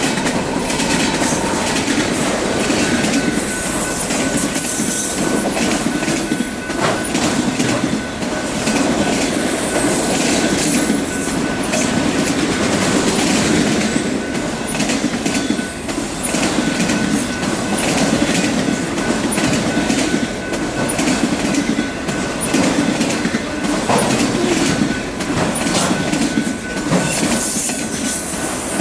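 A loaded line of freight cars rolling steadily past, wheels clacking over rail joints, with a thin steady squeal from the wheels.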